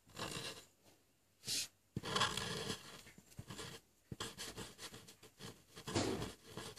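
Sharpie permanent marker scraping across paper in short, irregular strokes as small circles are drawn.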